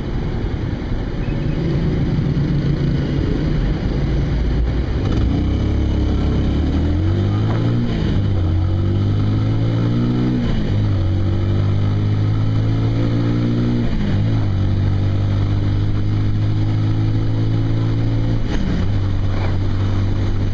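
Kawasaki cruiser motorcycle engine pulling away from a stop and accelerating up through the gears. Its pitch rises through each gear and drops at every upshift, then settles into steady cruising.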